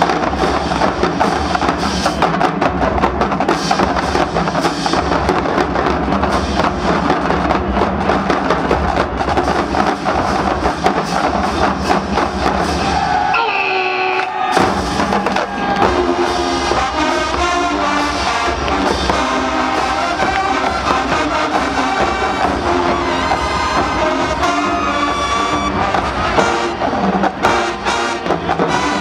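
Marching band playing live: the drumline and bass drums drive the first half. About halfway through there is a short break in the drums, and then the brass section plays a melody over the percussion.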